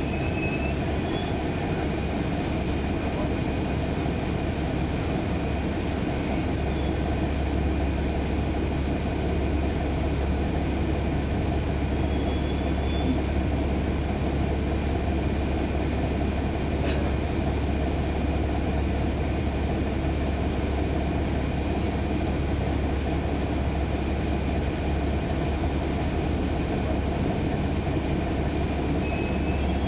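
On board a 2012 NABI 40-SFW transit bus, its Cummins ISL9 diesel engine running: a steady low drone inside the cabin, with one brief click about seventeen seconds in.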